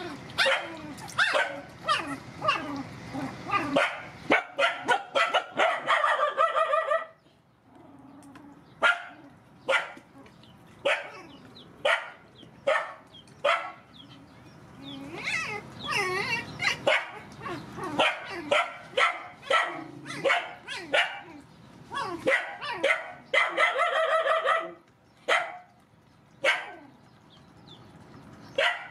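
Young puppies yelping and whining: short, high-pitched cries in quick runs, a few longer drawn-out whines among them, and a brief lull about seven seconds in.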